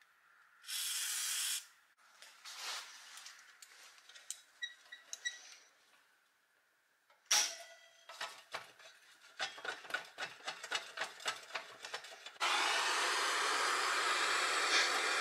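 A short spray of penetrating oil from an aerosol can onto a rusted threaded rod, then small clicks and handling of metal. About seven seconds in a sharp knock, followed by a run of quick metallic clicks as locking pliers wrapped in a rag work the part. Near the end a cordless drill runs steadily, used to turn the rusted part free.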